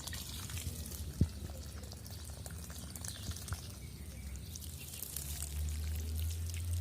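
Running water trickling and splashing, with many small drips over a low rumble that grows louder near the end, and one sharp knock about a second in.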